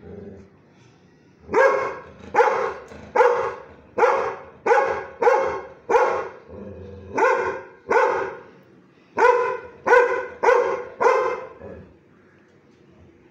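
Labrador-type dog barking in a rapid series: about a dozen loud barks in two runs, with a short pause between them.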